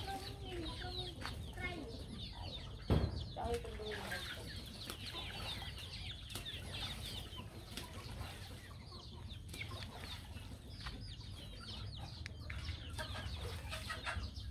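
A flock of young chickens clucking and peeping while foraging, with many short high chirps through the whole stretch. A single thump about three seconds in.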